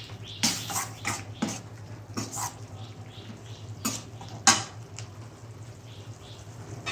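A metal spoon stirring and scraping in a kadai: a handful of short, irregular scrapes and clinks over a steady low hum.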